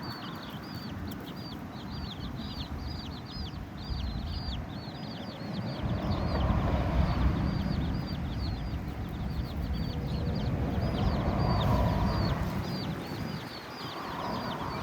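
Chicks peeping constantly, many short high chirps a second, over a low rumble that swells twice.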